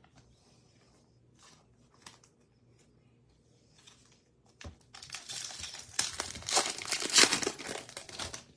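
Faint handling rustles and clicks, then, about five seconds in, a loud run of crinkling and tearing as a baseball card pack wrapper is ripped open and handled.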